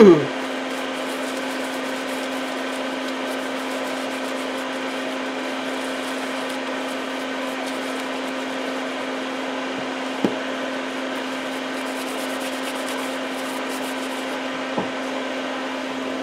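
A steady motor hum with a constant low tone, under the faint rustle of a paper towel wiping excess patina solution off the copper-coloured solder lines of stained glass. Two light taps, about ten seconds in and near the end.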